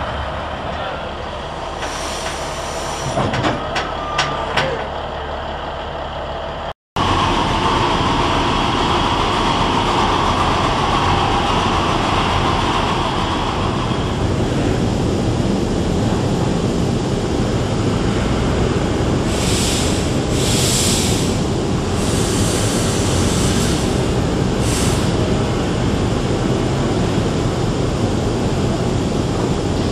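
A low engine hum with a few sharp metallic clicks. Then the 4-4-0 steam locomotive Eureka & Palisade No. 4 stands with steam hissing steadily and loudly, with several short bursts of sharper high hiss about two-thirds of the way through.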